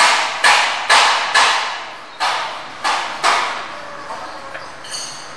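Wooden rolling pin rolling out naan dough on a marble slab: a stroke about every half second, each starting sharply and fading. The strokes slow after about two seconds and stop about three and a half seconds in.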